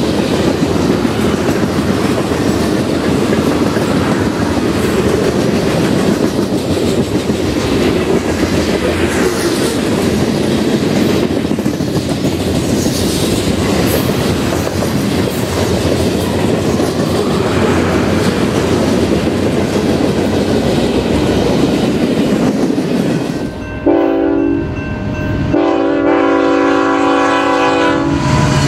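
Freight cars (tank cars, covered hoppers and boxcars) rolling past at speed: a steady rumble with wheel clatter on the rail joints. Near the end the sound switches to a BNSF diesel locomotive's multi-note air horn, sounded twice as the train approaches a grade crossing.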